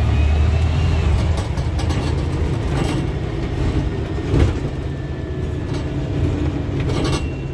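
Bus engine drone from inside the passenger saloon, with rattles and knocks from the bodywork and a louder thump about four seconds in.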